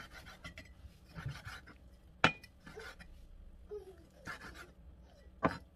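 Cleaver slicing raw chicken thigh on a wooden cutting board. Soft cutting sounds run through it, with two sharp knocks of the blade on the board, one about two seconds in and one near the end.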